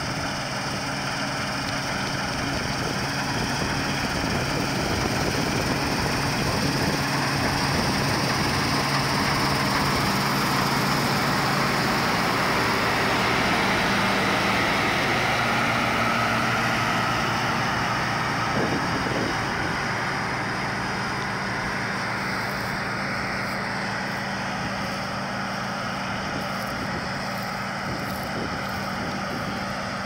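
New Holland TC56 combine harvester running as it harvests rye, a steady diesel engine drone with machinery noise. It grows louder as the machine passes close by about halfway through, then eases off as it moves away.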